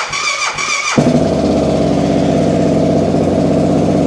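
Motorcycle starter motor cranking the engine in a steady rhythm, drawing the battery's voltage down, until the engine catches about a second in and settles into a steady idle.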